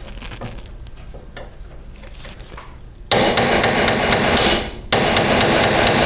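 Hammer blows on a brass punch drifting the dovetailed steel rear sight out of an S&W M&P Shield pistol slide held in a vise. About three seconds in, a fast run of strikes starts at about three or four a second, with a high metallic ring, a brief pause, then more strikes.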